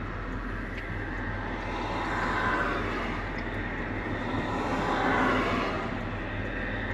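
Inside the cab of a 1975 Chevrolet C20 pickup at highway speed: a steady low engine drone with road and wind noise. The noise swells twice as traffic passes.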